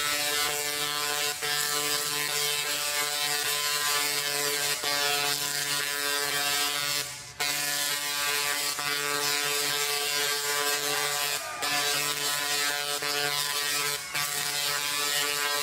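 Large 3-million-volt Tesla coil firing, its arcs giving off a steady rasping buzz that breaks off briefly a few times.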